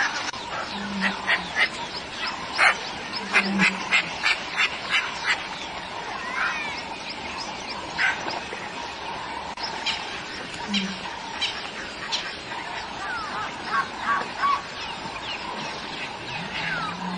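Birds calling: a quick run of short, sharp repeated notes in the first few seconds, then scattered notes and a few quick whistled glides.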